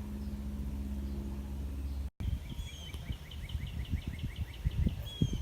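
A steady low hum up to a brief cut, then a bird singing a fast trill of about a dozen short repeated notes, around five a second, over low wind buffeting on the microphone.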